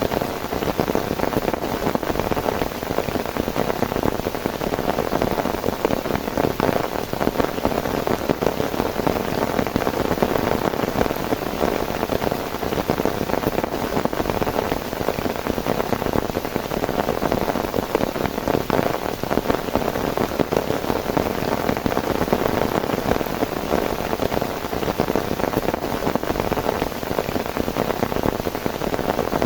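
Heavy rain falling steadily, a dense, even patter of drops on a surface.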